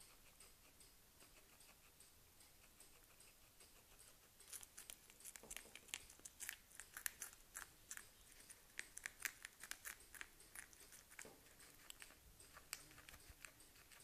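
Guinea pig biting and chewing a strip of melon rind: quick, crisp crunches starting about four and a half seconds in and going on for about six seconds, then thinning out.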